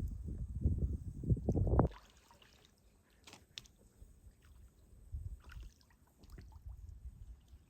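Wind buffeting the microphone as an uneven low rumble for about the first two seconds. Then it drops to faint water sounds with a few light clicks and splashes.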